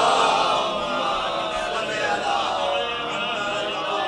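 Congregation reciting the salawat together as a chanted group response to the reciter's call, many voices blending into one.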